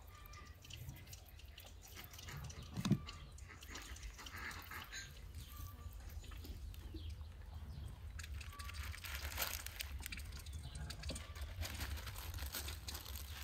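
Hands pressing and rubbing seasoning, garlic and rosemary into slits in a raw beef leg: faint wet squishing and soft clicks, with a single thump about three seconds in. Faint bird chirps and a low steady rumble lie underneath.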